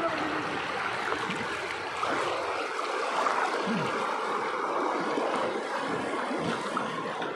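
River rapids rushing and churning past a small boat: a steady roar of white water.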